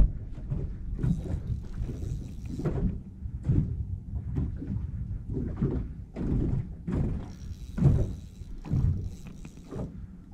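Irregular knocks and thumps with rustling and a low rumble close to the microphone: gear and rod handling in a small aluminum jon boat during a fight with a big blue catfish.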